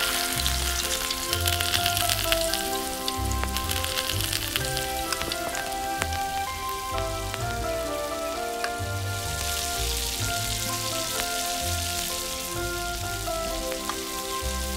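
Spiced boiled eggs frying in hot oil in a miniature wok: a dense sizzle that starts suddenly as the first egg goes in and swells again about two-thirds through. Background music with a melody and pulsing bass plays throughout.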